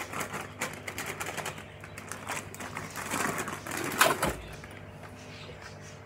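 Plastic flour bag crinkling and rustling as flour is squeezed and shaken out of it into a metal bowl, ending with a sharper knock about four seconds in. After that only a low steady hum remains.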